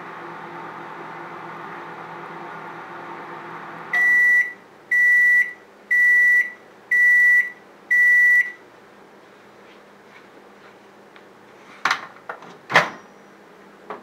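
Microwave oven running with a steady hum that stops about four seconds in as its timer runs out, followed by five loud high beeps about a second apart signalling the cycle is done. Near the end, a few sharp clicks and a clunk as the microwave door is opened.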